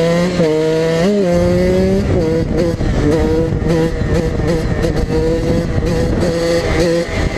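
KTM EXC 125 two-stroke dirtbike engine revving up over the first two seconds, with a quick blip about a second in. It then holds steady high revs with small throttle wavers while the bike is up on its back wheel, with wind rushing over the microphone.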